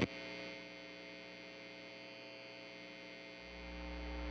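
Faint, steady electrical mains hum made of several steady tones, with a low rumble that swells up about three and a half seconds in.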